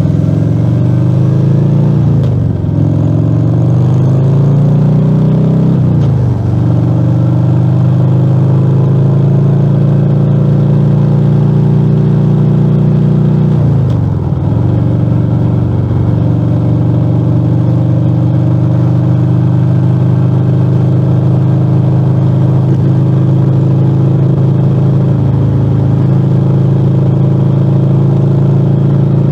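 Harley-Davidson Fat Bob 114's Milwaukee-Eight V-twin running loud through a Rinehart slip-on exhaust with the dB killers removed, on the move. The pitch climbs under acceleration and drops at gear changes about two and a half and six seconds in, dips briefly again around fourteen seconds, then holds steady at a cruise.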